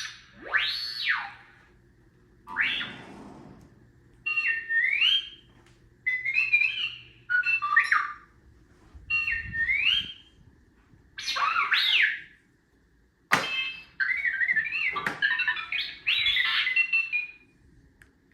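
R2-D2 droid sound effects from a sound module: about ten separate bursts of warbling beeps, chirps and whistles that glide up and down in pitch, a second or two apart, with a sharp click about two-thirds of the way through.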